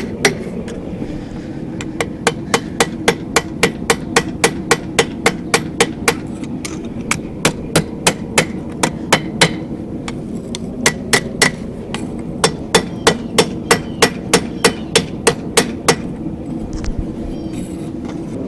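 Hand hammer striking forged steel on an anvil in fast runs of about three blows a second, broken by short pauses: flattening the corners of a feather forged from angle iron.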